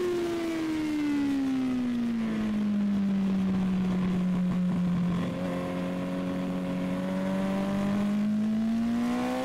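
Sport motorcycle engine at a track day. The revs fall steadily for about three seconds, hold low for a few seconds, then climb again from about six seconds in as the bike accelerates.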